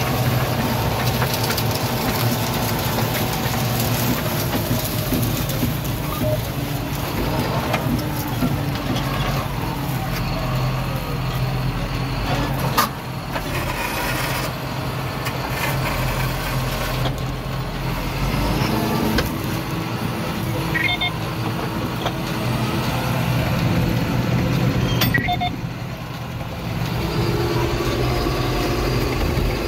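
John Deere 7530 tractor's six-cylinder diesel engine running steadily under load while pulling a plough. There are a few sharp clicks partway through and short electronic beeps in the second half.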